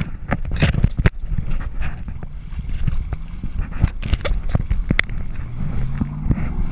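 Heavy wind noise on the microphone of a camera fixed to an inflatable tube being towed across the water, with sharp knocks and slaps as the tube bounces over the waves: several in the first second, more around four and five seconds in.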